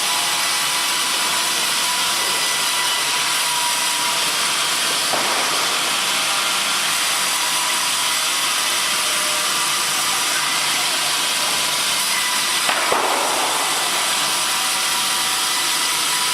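Sawmill machinery running, a power saw cutting wood: a steady hissing machine noise with two brief louder swells, about five seconds in and near thirteen seconds.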